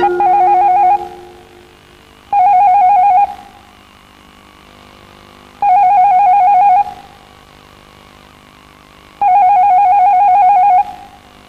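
Electronic telephone ringer trilling: four warbling rings, each about a second long, with a couple of seconds of quiet between them.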